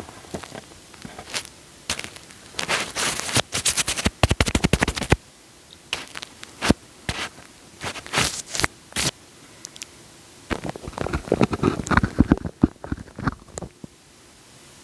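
Wet, sticky sounds worked close on a microphone: irregular clicks and crackles, with a quick run of clicks about four seconds in and a dense patch of crackling from about eleven to thirteen seconds in.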